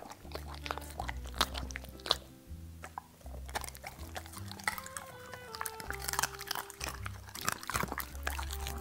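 Dog chewing and crunching food, with irregular sharp crunches over background music with steady low notes.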